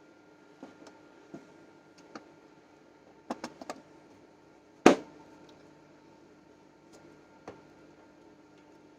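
Small clicks and taps of metal parts and a hand tool being handled, with a quick run of four ticks and then one much louder sharp knock near the middle, over a steady hum.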